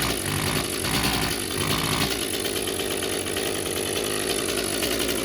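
Echo CS-355 two-stroke chainsaw held at wide-open throttle but running muffled and failing to rev out. It surges unevenly for about two seconds, then runs steadily. The exhaust turns out to be all clogged up.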